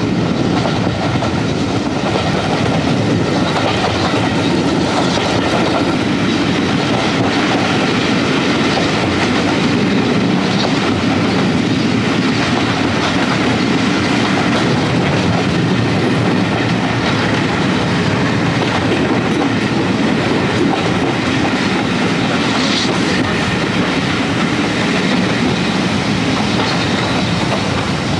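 Heritage railway carriage running steadily along the track, heard from an open carriage window: a continuous rumble of wheels on rail with clickety-clack from the rail joints.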